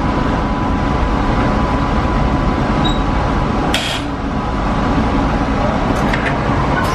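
A New Orleans streetcar running along its tracks, heard from on board: a steady low rumble of the moving car, with a brief hiss about four seconds in.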